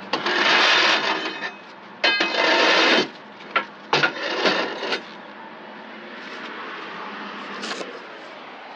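A steel crowbar scraping and grating against the metal of a truck's frame as it is pushed into its stowage slot: two long rasping scrapes, then a few sharp metal knocks, then quieter from about five seconds in.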